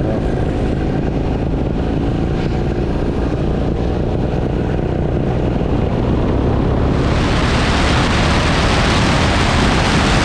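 Paramotor engine and propeller running steadily, with a loud rushing hiss joining about seven seconds in.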